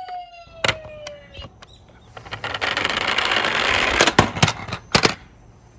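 A toy ambulance's electronic siren dies away in a falling tone, followed by a click. The minicar then rolls down a plastic slope for about two seconds, ending in a quick string of sharp clacks.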